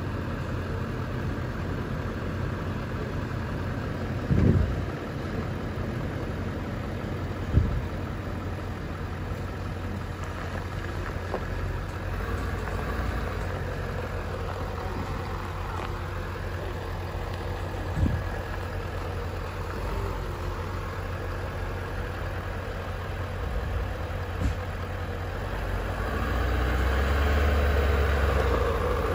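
Ford F-450 Super Duty dually pickup's engine running steadily at low speed while it pulls a fifth-wheel camper through a sharp turn, with a few short thumps along the way. The engine grows louder near the end as the truck comes close.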